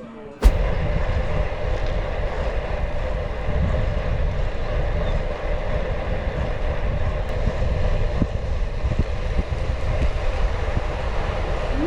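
Rushing wind noise on the microphone of a road bike riding at speed, with road and tyre noise underneath. It starts suddenly about half a second in and then runs steadily.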